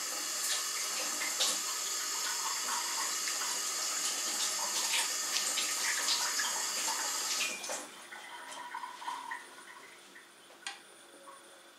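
Kitchen tap running hard into the sink, then shut off abruptly about seven and a half seconds in. A few light clinks and knocks follow.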